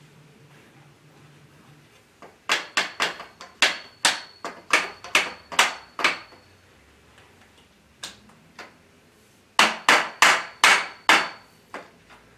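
Steel grow-tent frame tubes being knocked home into their connectors: a quick run of about ten sharp knocks, two single ones, then another run of about six, with a faint metallic ring under the runs.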